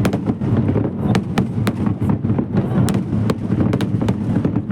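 Fireworks going off in quick succession: many sharp crackling pops, several a second, over a continuous low din of bursts.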